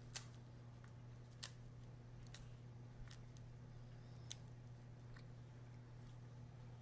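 Faint, sharp clicks about once a second as fresh basil leaves are torn by hand over a pizza, over a steady low hum.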